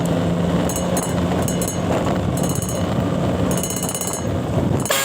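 A steady vehicle engine hum with street noise, overlaid by repeated bursts of rapid high-pitched ticking.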